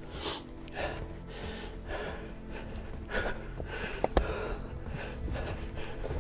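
A person's heavy breathing: irregular, audible breaths about a second apart from the effort of a steep mountain scramble, with one sharp click about four seconds in.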